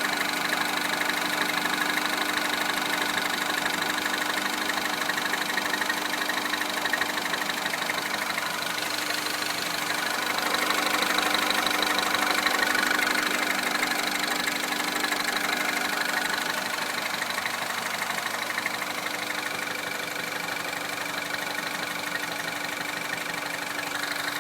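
Citroën DS3 Racing's turbocharged 1.6-litre four-cylinder petrol engine idling steadily. About ten seconds in, its speed and loudness rise slightly for a few seconds, then settle back.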